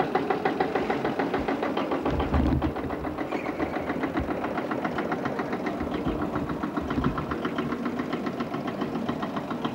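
An engine idling with a rapid, even knocking beat.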